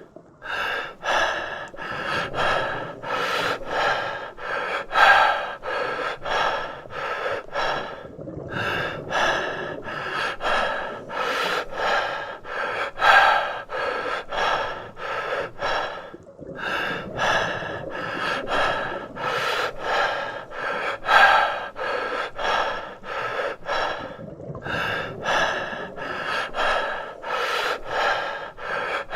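A person's breathing as a sound effect: quick, short gasping breaths, a few a second, in a sequence that loops about every eight seconds.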